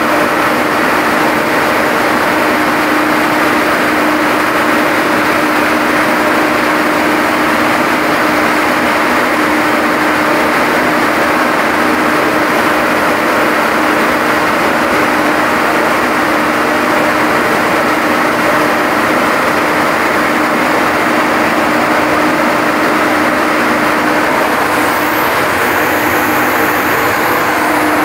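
A steady motor or engine running without change: an even hum with one constant tone underneath and no revving.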